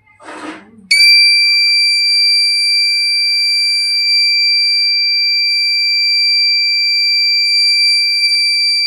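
Homemade relay-based wire-cutting security alarm sounding: a steady, piercing high-pitched tone switches on abruptly about a second in and holds without a break, the sign that the guard wire has been cut and the alarm has tripped. A brief noise comes just before it.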